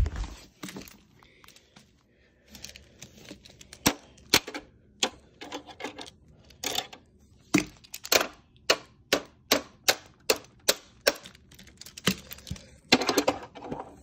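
Hard plastic toys being handled: a string of sharp clicks and taps, a thud at the start, about two a second in the middle stretch and a short clatter near the end.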